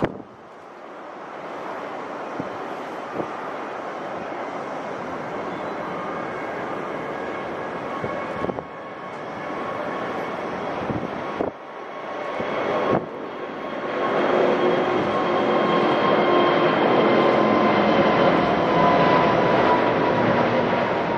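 Airbus A380's four Rolls-Royce Trent 900 jet engines at take-off thrust: a steady jet noise broken by a few sudden jumps in level. It grows much louder about two-thirds of the way through as the airliner climbs past, with whining engine tones slowly falling in pitch.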